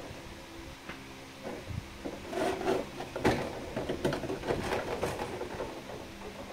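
Clear plastic blister tray being handled and lifted: irregular crinkling and clicking of thin plastic, busiest in the middle.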